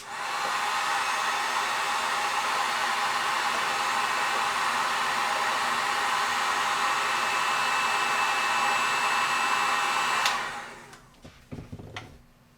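Drill Master heat gun switched on with a click and blowing steadily for about ten seconds to shrink heat-shrink tubing, then switched off near the end with a click and winding down.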